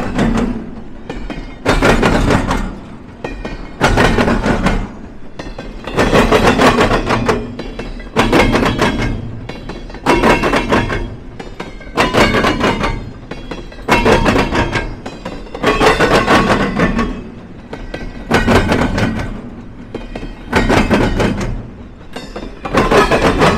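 Train cars rolling across a railroad diamond crossing, their wheels banging over the crossing in a loud, even rhythm, a burst about every two seconds as each pair of trucks passes.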